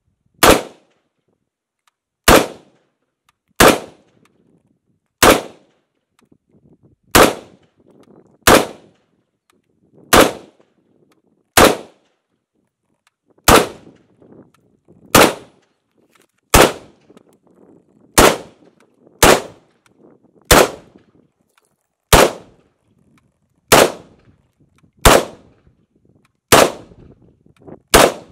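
Zenith Z-43P, an HK93 clone, firing .223 rounds in single semi-automatic shots. It fires about nineteen times at a steady pace, roughly one shot every second and a half.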